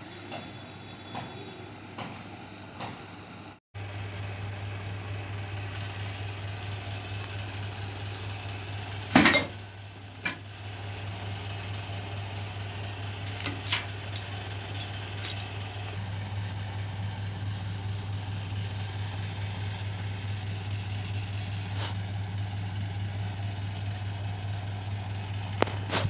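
Washing machine electric motor running with a steady low hum, with a few sharp knocks from handling, the loudest about nine seconds in.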